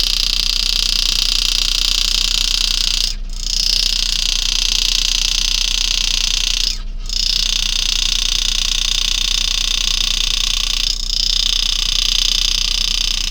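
Power-assisted engraving graver buzzing steadily while it cuts a spiral into a coin, stopping briefly three times between cuts.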